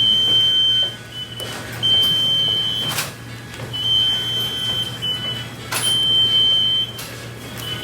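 Electronic beeper sounding one high steady tone in repeated beeps, some short and some about a second long, with a few sharp knocks between them.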